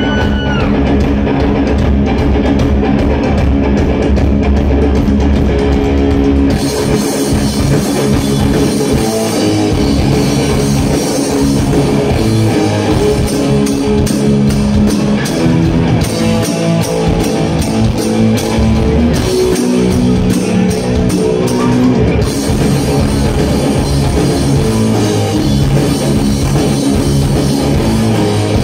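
Heavy metal band playing live through a PA: electric guitars, bass and drums. A held low guitar and bass opening gives way about six seconds in to the full kit with cymbals driving a repeating riff.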